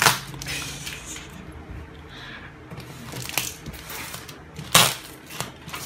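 A shipping package being forced open and handled by hand: a sharp knock right at the start, scattered clicks and rustling, and another loud knock a little before the end.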